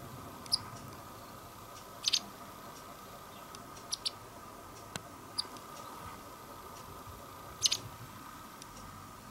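White wagtail giving short, high chirping calls, singly and in quick pairs, about six times, over a faint steady hum; a single sharp click about five seconds in.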